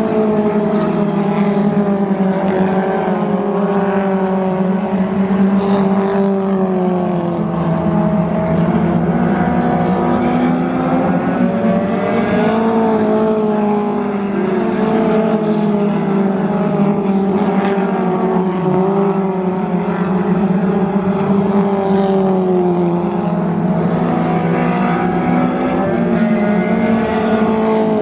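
A field of dirt-track thunder-class Mustang stock cars racing, several engines running hard at once, their pitch rising and falling as the cars work through the turns and pass.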